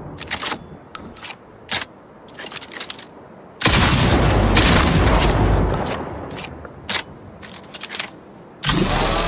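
Double-barrel shotgun sound effect: quick clicks of the gun being handled, then a loud shotgun blast with a long fading tail about a third of the way in, more clicks, and a second blast near the end.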